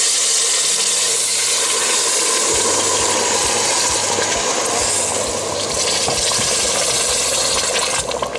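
Hot sugar syrup pouring into semolina toasted in hot oil: the mixture sizzles and splatters with a loud, steady hiss. Near the end the hiss drops as a spatula starts stirring.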